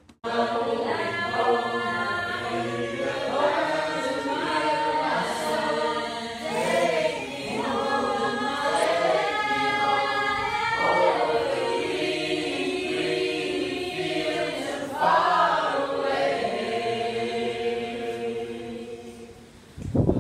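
A group of voices singing together in a choir-like blend, several pitches held and sliding against each other, fading out near the end.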